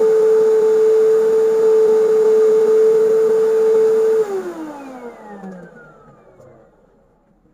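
Canister vacuum cleaner running steadily, then switched off by foot about four seconds in; the motor winds down with a falling whine and fades away.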